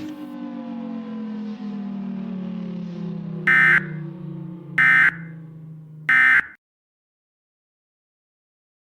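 A siren winding down, its pitch falling slowly as it fades. Over it come three short electronic data bursts about 1.3 seconds apart: the Emergency Alert System end-of-message tones that close an alert. The sound cuts off suddenly after the third burst.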